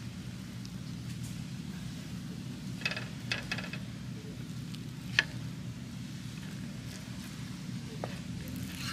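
Food quietly sizzling over a charcoal grill, with a few light clicks about three seconds in and one sharp click a little after five seconds.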